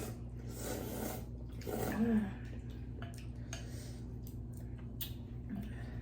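Close-miked eating sounds of a person having hot soup: two short breathy bursts in the first two seconds, the second ending in a brief hum, then small mouth clicks and smacks, over a steady low hum.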